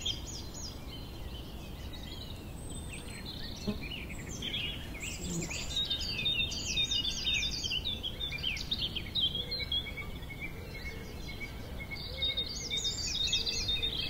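Several woodland songbirds singing over one another. A fast run of evenly repeated high notes sounds at the start and again near the end, with other varied, warbling phrases in between.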